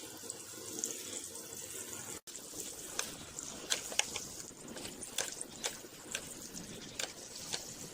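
Batter-coated soya chunks deep-frying in hot oil: a steady sizzle with scattered sharp crackles and pops.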